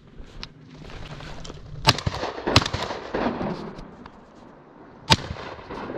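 Three shotgun shots at flushing ducks: two quick shots about two-thirds of a second apart, then a third about two and a half seconds later.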